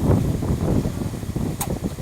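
Close chewing of crunchy Nissin Bread Stix breadsticks: an irregular run of crunches and mouth noise, with a sharper crack about a second and a half in.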